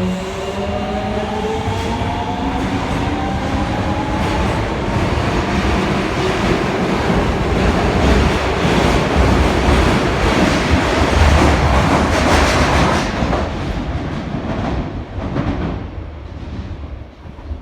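Osaka Metro 22 series subway train pulling away: its motor whine rises in pitch over the first few seconds, then the running noise and clatter of the wheels over the rails grow louder and fade away near the end.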